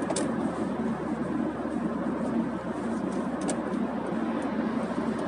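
Cabin noise of a Volvo 2.0-litre turbo petrol car cruising at about 100 km/h: a steady low engine drone at around 2,500 rpm under road and tyre noise.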